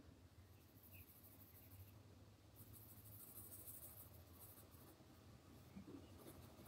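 Faint scratching of a Derwent Chromaflow coloured pencil on drawing paper as a colour swatch is shaded in, in spells of strokes.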